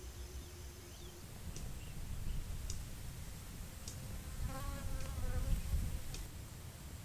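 A flying insect buzzes past for about a second, some four and a half seconds in. Under it is a low, uneven rumble like wind on the microphone, with a few faint high ticks.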